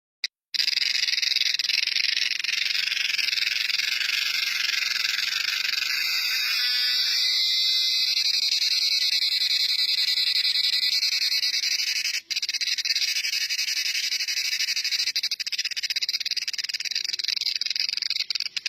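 Cicada calling: a loud, steady, high-pitched buzz that starts about half a second in and breaks off for a moment about two-thirds of the way through.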